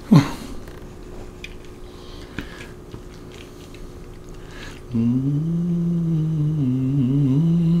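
A short, loud sound that drops sharply in pitch right at the start, then faint clicks of a fork on a plate while a man takes a bite and chews. About five seconds in he begins a long, steady closed-mouth "mmm" hum of enjoyment.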